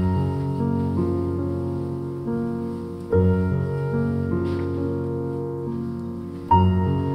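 Background piano music, a gentle tune with new chords struck about three seconds in and again near the end.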